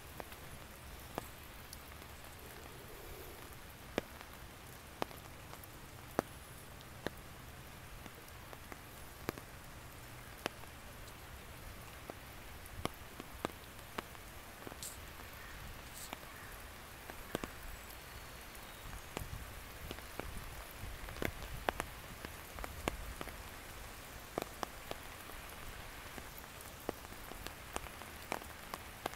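Light rain falling on a garden's leaves and lawn: a steady soft patter with irregular sharp taps of single drops landing close by.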